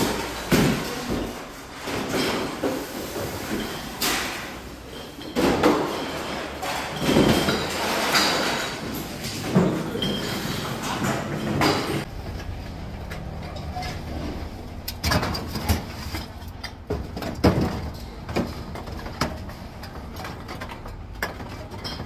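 Empty glass bottles, plastic jugs and aluminium cans rattling and clinking together in a rolling recycling cart, in irregular bursts. After about twelve seconds it turns quieter, with a few sharp clicks of cans being handled.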